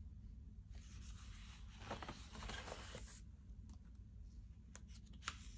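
A page of a disc-bound paper planner being turned: a soft rustle and slide of paper lasting about two seconds, then a few light taps near the end.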